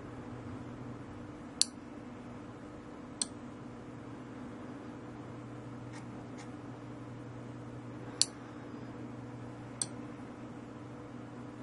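Relay on a 12 V PLC cycle-timer relay module clicking on and off, switching the soldering iron's mains power in timed pulses to hold its temperature. A loud click is followed by a softer one about a second and a half later, and the same pair comes again about five seconds on, with two faint clicks in between. A steady low electrical hum runs underneath.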